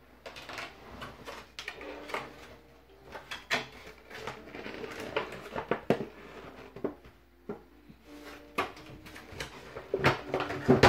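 Cardboard and plastic packaging of a Pokémon TCG Shining Legends box being handled and its contents pulled out: rustling with many sharp clicks and knocks.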